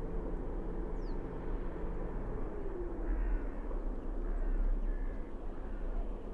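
Steady low rumble of background ambience, with a few short animal calls, possibly birds, about three seconds in and again a second and a half later.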